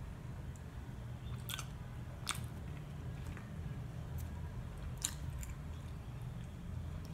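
A person chewing a bite of baked salted-egg-yolk mooncake with a hard, sugary crust: soft chewing with a few sharp, crisp crunches spread through, over a steady low hum.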